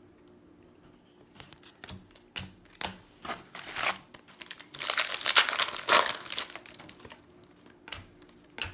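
Plastic wrapper of a baseball card pack crinkling and tearing open, with the loudest, densest crackling for a second and a half about five seconds in, and light clicks of card handling before and after.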